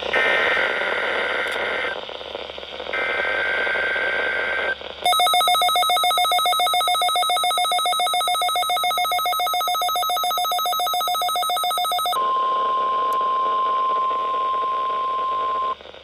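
NOAA weather radio receiving an Emergency Alert System Required Weekly Test: two bursts of the alert header's shrill screeching data tones, then the radio's alarm beeping in a rapid pulse for about seven seconds. Then a single steady weather-radio warning tone for about three and a half seconds, which cuts off suddenly.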